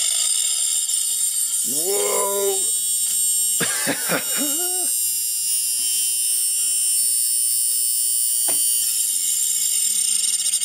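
Opened Samsung IDE hard drive running with its cover off: a steady high whine from the spinning platter and spindle motor. Two swooping rising-and-falling chirps come about two and four seconds in, and a single click near the end.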